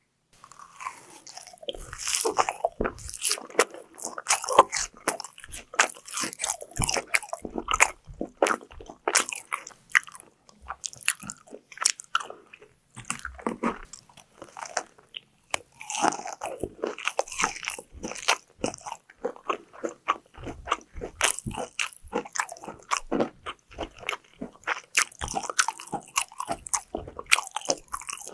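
Close-miked biting and chewing of crunchy fried food: dense, irregular crunching and crackling with repeated bites.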